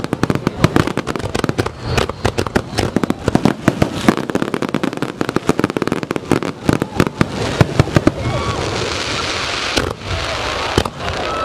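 Star mine fireworks barrage: many shells bursting in quick succession, a rapid run of loud bangs. About eight seconds in, the bangs thin out into a steady crackling hiss.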